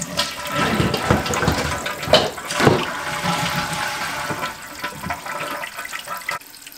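Toilet tank water rushing and splashing as a newly replaced fill valve runs and the tank flushes and refills, with a faint steady hiss from the valve under the water noise.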